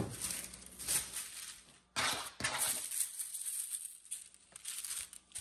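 Tissue paper rustling and crinkling in irregular bursts as it is folded around stretched canvases.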